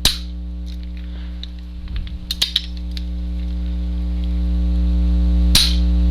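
Steady electrical hum under small metallic clicks of a Sig Sauer 1911 pistol being handled and cocked, then one sharp snap about five and a half seconds in as the hammer drops on the trigger pull, firing a pencil out of the barrel in a pencil test of the firing pin.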